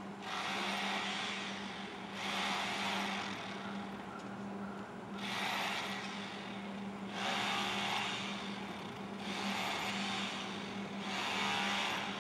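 Outdoor background noise: a steady low hum under a hiss that swells and fades about every two seconds.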